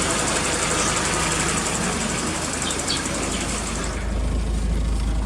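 Volkswagen Jetta's engine idling steadily; at about four seconds the sound changes to a deeper, low rumble.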